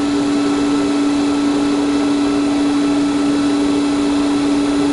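Heng's Vortex II RV roof vent fan running with its insect screen fitted: a steady hum with one strong tone over an even rush of air. The fitted screen adds no extra noise.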